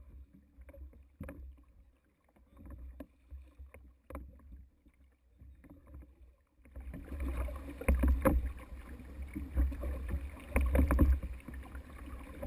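Crew rowing a whaleboat: scattered knocks and splashes of the oars with each stroke over the sound of water. About seven seconds in, the water and wind-on-the-microphone noise grow much louder.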